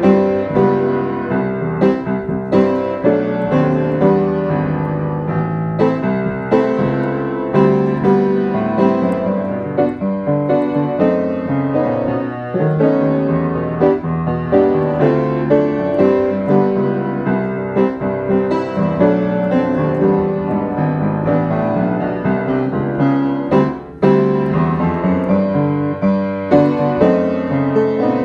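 Background solo piano music, played continuously with many notes and chords and one brief break.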